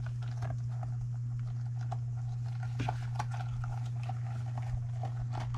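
Faint irregular clicks and taps of a rubber RC crawler tire, insert and beadlock wheel being handled and fitted together, over a steady low hum.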